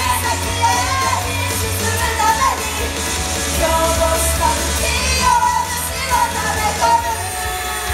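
Idol group singing live over loud pop-rock backing music with a heavy, steady bass.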